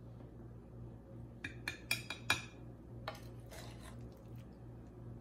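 A metal serving spoon clinks and scrapes as cooked greens are spooned from a pan into a glass baking dish. There are about five quick clinks about a second and a half in and a few more around three seconds, over a low steady hum.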